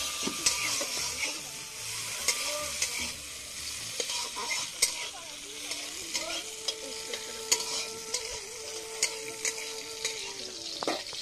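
Cashews and raisins sizzling as they fry in hot oil in a kadai, stirred with a spatula that clicks and scrapes against the pan now and then.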